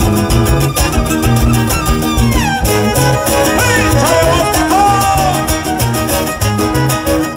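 Huasteco trio playing son huasteco live: a violin melody over the steady strumming of a jarana huasteca and a huapanguera. The violin slides down in pitch about two and a half seconds in.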